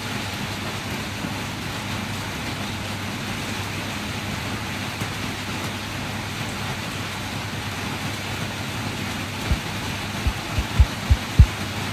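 Steady hiss of rain. Several short low thumps come in the last couple of seconds, louder than the rain.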